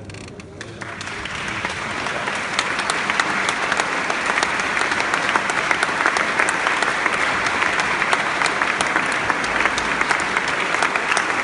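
Audience applauding: many hands clapping, starting about a second in and swelling to a steady level.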